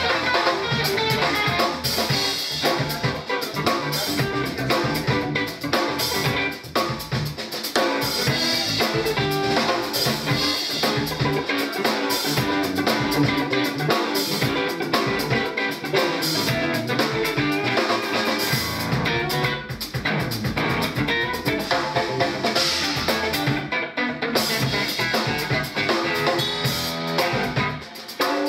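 Electric rock trio playing an instrumental passage live: electric guitar over bass and a busy drum kit with rimshots and kick drum.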